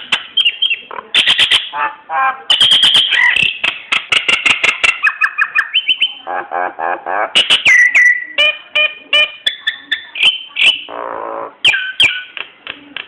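Jalak nias myna singing a long, varied song of quick whistles, sharp clicks and gliding notes, broken by harsher buzzy phrases.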